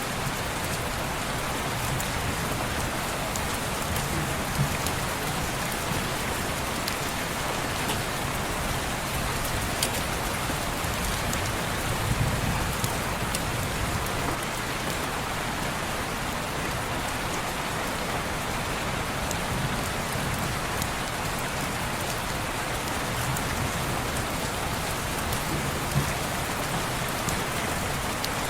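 Steady rain falling on a window, an even hiss with scattered sharp little ticks and a few soft low swells.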